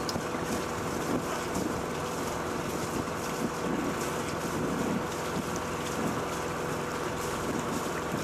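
Wind buffeting the microphone over the steady hum of the trimaran's motor as the boat moves along.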